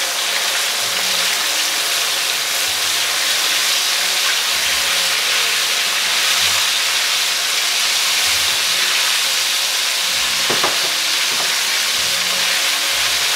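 Velveted beef strips deep-frying in hot oil in a wok: a loud, steady sizzle as the pieces are stirred and broken up with a wire spider skimmer.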